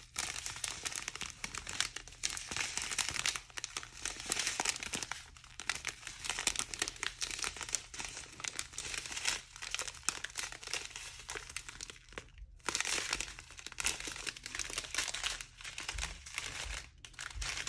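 Small plastic bags of diamond painting drills crinkling as they are handled and counted, one after another, with a brief pause about twelve seconds in.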